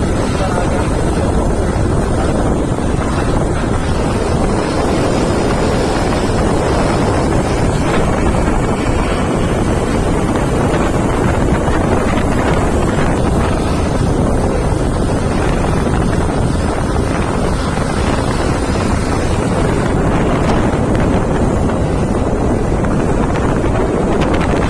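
Steady wind noise rushing over the microphone while travelling by road, with vehicle and traffic noise underneath.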